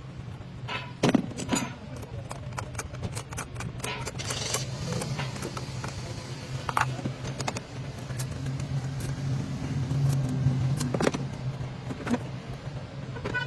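Scattered metallic clicks and clinks of hand tools and metal parts being worked on car battery terminal clamps, over a steady low hum.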